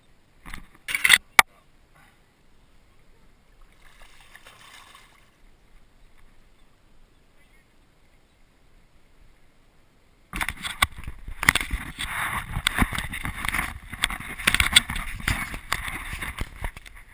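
Handling noise of a GoPro action camera: a couple of sharp knocks about a second in, then from about ten seconds in a loud, continuous rubbing and clattering as the camera is moved about against clothing.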